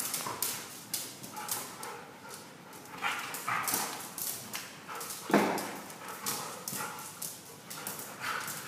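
Siberian huskies play-fighting on a tile floor: claws click and scrabble on the tiles amid play growls and grumbling vocalisations, with one louder vocal outburst about five seconds in.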